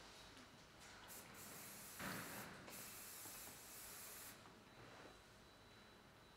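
Aerosol hairspray hissing from a can: two short puffs, then a longer spray of about three seconds with one brief break. A short handling knock comes about two seconds in.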